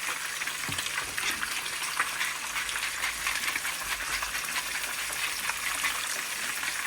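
Whole fish frying in hot vegetable oil: a steady sizzle with a stream of small crackling spatters.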